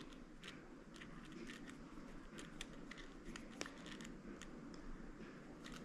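Faint, scattered light clicks and ticks of small metal reel parts being handled and fitted: drag washers and drag pieces going onto a Quantum Invade baitcasting reel as it is reassembled.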